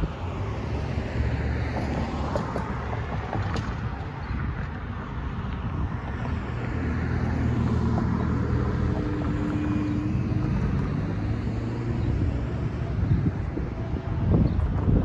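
Road traffic driving past over the crossing, cars and a van passing one after another with tyre noise and engine hum, and wind buffeting the microphone. A couple of knocks and a brief louder swell come near the end.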